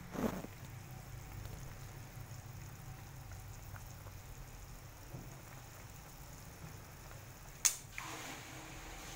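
Pot of chicken tinola simmering at a rolling boil, a low steady bubbling. There is a short knock just after the start and one sharp click, the loudest sound, a little before the end.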